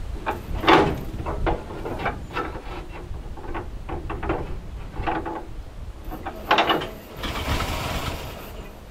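ZIL-131's V8 petrol engine being turned over with a hand starting crank: irregular clicks and clunks of the crank and engine, with a hissing rush about seven seconds in.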